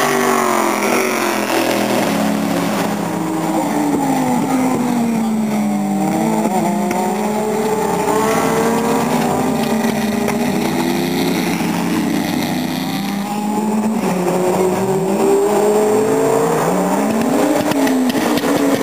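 Several GT race cars, among them a Corvette C6.R and a Porsche 911, passing on the circuit. Their engine notes overlap and rise and fall as they go by and change gear.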